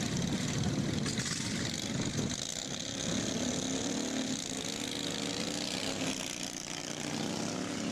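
Racing lawn mower engines running at full throttle as two mowers race down the track. A rough low drone gives way to a steadier engine tone about three seconds in.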